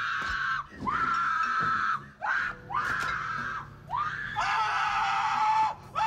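Shrill human screaming: about five long, high-pitched screams in a row, each swooping up at its start and then held, with short gaps between them.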